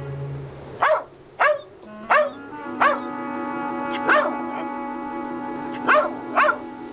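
A dog barking: seven short, sharp barks at uneven intervals, over held notes of background music.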